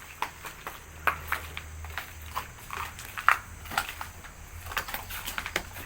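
Footsteps crunching and clicking irregularly over debris on the floor, over a low steady rumble.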